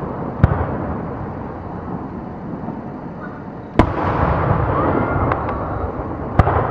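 Aerial firework shells bursting: three sharp bangs, about half a second in, near the middle (the loudest) and near the end, over a steady background of more distant fireworks that swells after the middle bang.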